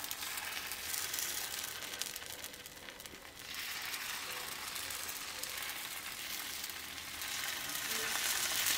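Thin barnyard-millet and sago dosa batter sizzling as it is poured onto a very hot non-stick tawa, a steady high hiss. It dips briefly about three seconds in and grows louder near the end as more batter hits the pan.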